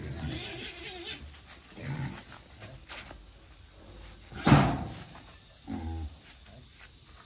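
A wild boar grunting and crying out as it is being caught, with one short, loud cry about four and a half seconds in and a low grunt near six seconds.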